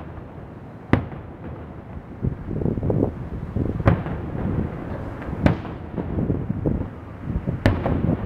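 Aerial firework shells bursting at a distance: four sharp bangs one and a half to three seconds apart, over a low, steady rumble.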